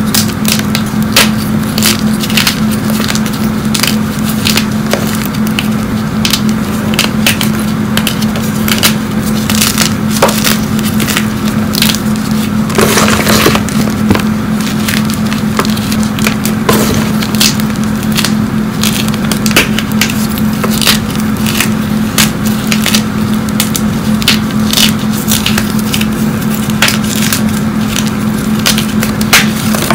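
Blocks of fresh gym chalk crushed in the hands, with a steady run of crunching, cracking and crumbling as chunks break apart. The chalk is very hard. A steady low hum runs underneath.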